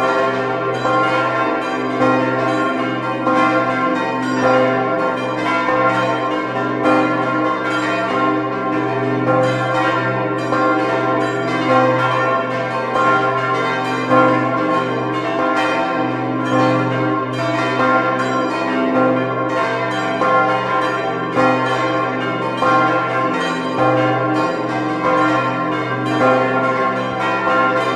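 Church tower bells ringing in a continuous full peal. Several bells strike over one another, their tones overlapping above a steady low hum.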